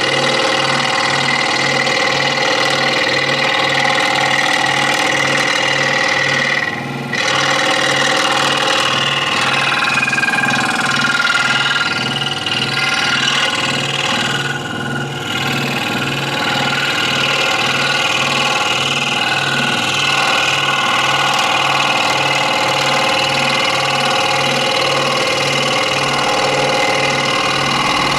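Electric scroll saw running steadily, its blade reciprocating through wood as it cuts. There are two brief dips in level, around seven and fifteen seconds in.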